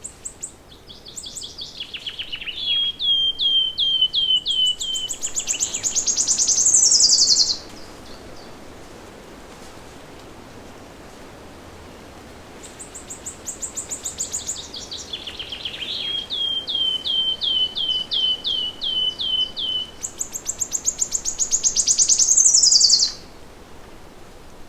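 A songbird singing the same long song twice with a pause between. Each song is a run of clear repeated chirps that builds in loudness into a fast, high trill ending in a downward flourish.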